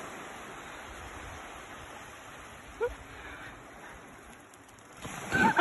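Small waves washing onto a sandy beach, a steady hiss of surf that slowly fades. A short, high call rises briefly about three seconds in, and a loud voice starts just before the end.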